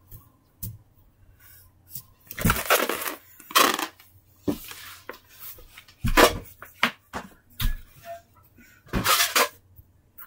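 Off-camera handling noise: irregular bursts of rustling and clatter, loudest about two and a half to four seconds in and again around six and nine seconds in.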